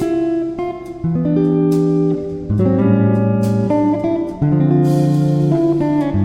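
Background music led by guitar, with steady changing chords and notes.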